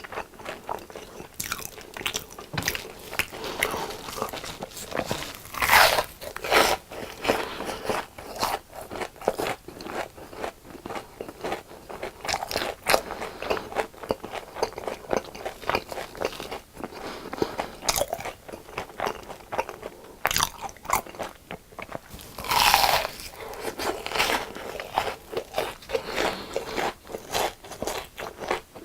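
Crunchy biting and chewing of crispy deep-fried food, a dense run of crisp crackles with louder bites about six seconds in and again around twenty-three seconds.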